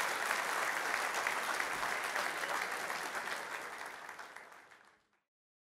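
Audience applauding, fading out about four seconds in and stopping just after five seconds.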